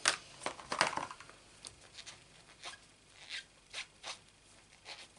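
Scattered light taps and rustles of paper-crafting supplies being handled on a desk: a burst of clicks in the first second, then a few more spaced ones.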